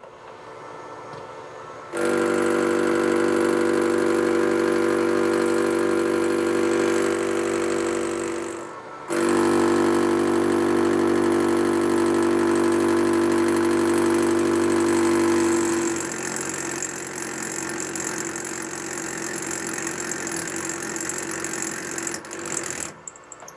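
Metal lathe taking a heavy interrupted cut on a square block of hardened steel at a raised feed rate. The carbide insert strikes the block's corners in a fast, loud, steady drone that starts about two seconds in, breaks off briefly just before the middle and resumes. About two-thirds through it turns quieter and hissier, as the cut is hard enough that the part slips in its holder, and it stops shortly before the end.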